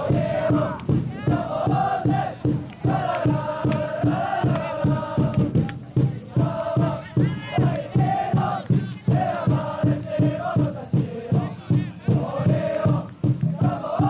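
Supporters' cheering section chanting and singing in unison to a steady drumbeat.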